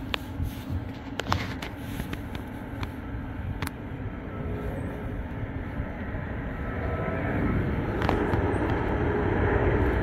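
An 800-watt electric kettle rumbling at the boil with its half litre of water. It grows louder over the last few seconds as it nears its automatic shut-off, and a few light clicks sound along the way.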